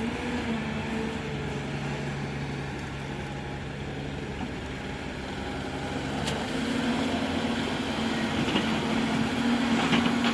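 Diesel machinery engine running steadily, then speeding up about six and a half seconds in, its note rising and getting louder.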